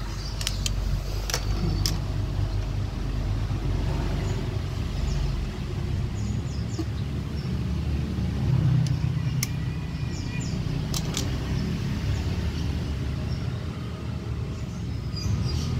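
Steady low engine rumble of a motor vehicle running, with a few sharp metallic clicks of hand tools on the scooter's clutch-cover bolts. The clicks come mostly in the first two seconds and again a little past the middle.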